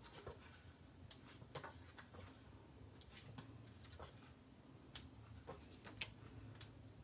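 Faint scattered clicks and light rustles of paper handling: foam adhesive dimensionals being peeled from their backing sheet and pressed onto a strip of cardstock, with about nine separate little clicks spread through the stretch.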